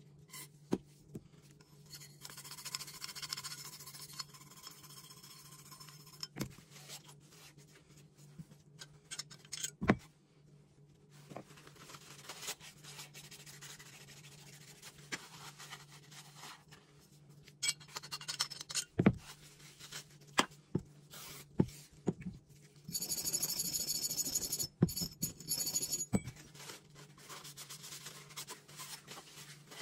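Hand cleaning of small gun parts: a brush scrubbing and rubbing on metal, with a few sharp knocks of parts on the bench. About three-quarters through comes a louder hiss lasting about three seconds. A faint steady hum runs underneath.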